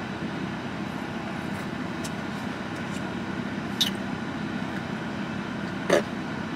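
Steady low hum of a running car heard from inside the cabin, with two short clicks about two seconds apart.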